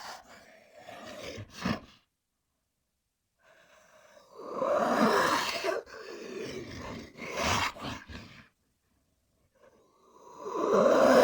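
Made-up creature calls for Megalania, an extinct giant lizard: a short call that ends about two seconds in, then after a pause a long loud call, a shorter one a few seconds later, and a third swelling to its loudest at the end.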